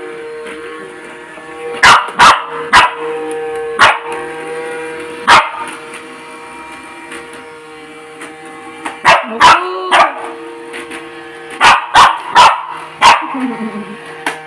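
Small dog barking about a dozen times at a robot vacuum cleaner, in three bunches of sharp barks, one with a yelping rise and fall. Under the barks the robot vacuum's motor hums steadily.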